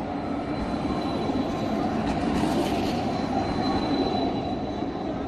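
Tram running on its rails: a steady rumble of wheels on track with a thin, high, steady squeal over it. It grows louder toward the middle, as if passing close.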